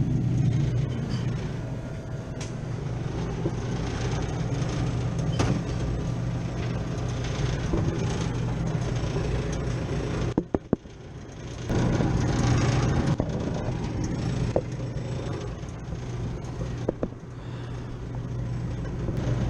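Steady low hum of running refrigeration equipment. About ten seconds in it drops out for a moment with a few clicks, then the hum resumes.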